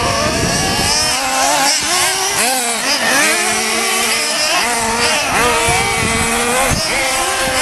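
Several 1/8-scale RC buggies' small nitro engines buzzing at high revs, overlapping, their pitch rising and falling repeatedly as they throttle up on the straights and lift off for the corners.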